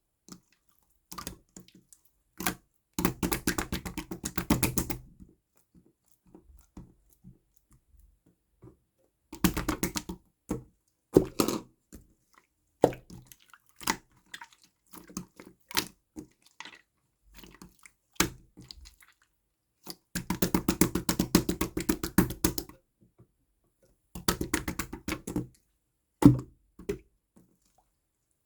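Clear slime being squished and pressed by hand: wet clicks and small popping air bubbles, coming in runs of rapid clicking a couple of seconds long, with single pops and silent gaps between them.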